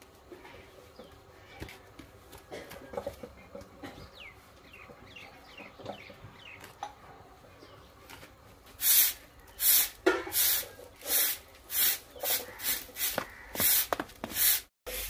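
Bottle gourd leaves being torn and snapped off their stalks by hand. It is faint at first, then from about nine seconds in comes a quick run of loud, crisp rips and snaps, one or two a second.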